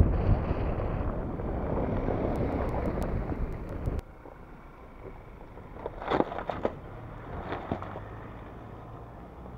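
Ford Ranger Raptor pickup driving close by on a dirt track: loud engine and tyre noise that cuts off suddenly a little under halfway. Then the truck is heard fainter as it crosses muddy ground, with a few short knocks past the middle and a low engine hum near the end.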